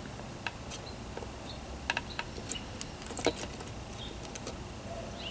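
Scattered light clicks and ticks from handling a circuit board and its component leads while hand-soldering with a soldering iron, the sharpest click a little past three seconds in.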